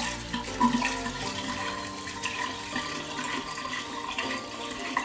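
White wine poured in a steady stream from a bottle into a large glass jar, splashing into the wine already collecting at the bottom.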